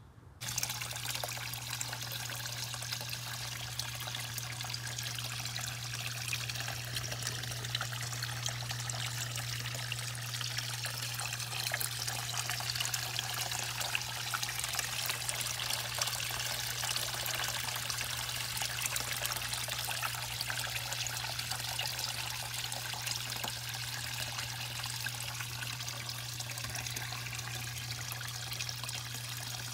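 A stream of water pouring into a small garden fish pond, splashing steadily on the surface, with a steady low hum underneath.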